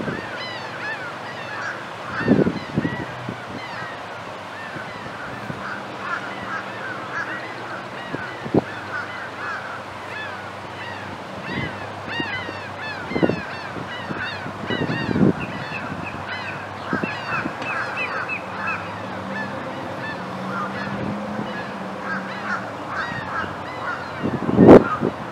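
A flock of birds calling continuously in many short overlapping calls, with a few low thumps, the loudest near the end.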